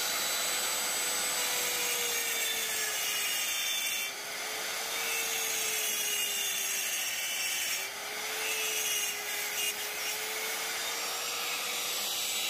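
A power tool driving a spiral end mill that cuts into a scooter's aluminium crankcase. It gives a steady harsh cutting noise over a motor whine, and the whine sags in pitch twice as the cutter bites, then recovers.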